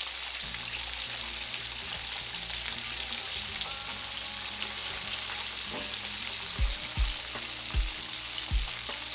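Chicken wings deep-frying in vegetable oil in a cast iron skillet: a steady sizzle, the wings golden brown and floating at the top, which means they are done. A few low thumps come in the second half.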